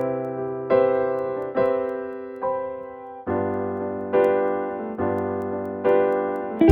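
Opening of a slow down-tempo R&B lounge track: keyboard chords alone, a new chord struck about every 0.8 seconds, each ringing and fading before the next.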